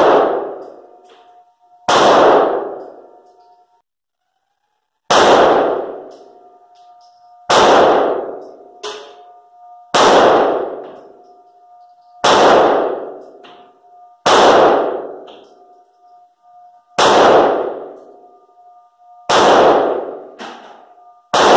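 Smith & Wesson Shield EZ 9mm pistol fired in slow, deliberate single shots, about one every two seconds, in an accuracy string. Each shot echoes and dies away over a second or so in the enclosed range. A faint steady ringing tone lies underneath.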